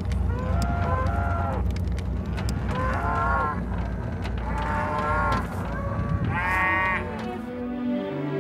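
Cattle bawling: several drawn-out calls a second or two apart, the loudest about six and a half seconds in, over a steady low rumble with scattered clanks.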